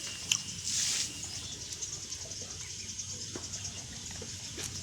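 Steady high-pitched chirring of insects, with a sharp click about a third of a second in and a short hiss about a second in.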